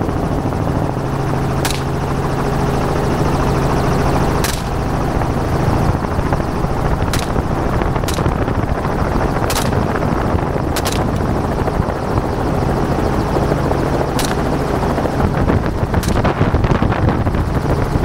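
Helicopter running steadily overhead, with about nine rifle shots fired from it at irregular intervals of one to three seconds, two of them in quick succession.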